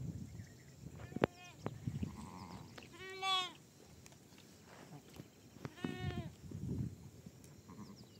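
Sheep in a flock bleating: three separate bleats, a short one about a second in, the loudest about three seconds in and another about six seconds in, over a low rustling.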